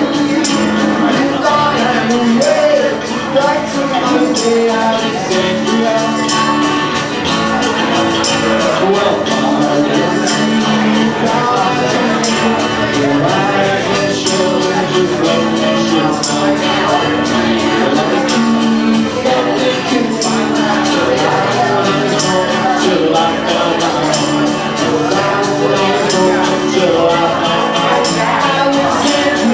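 An acoustic rock band playing a song live: acoustic guitar with a steady, regular percussion beat and a voice singing the melody.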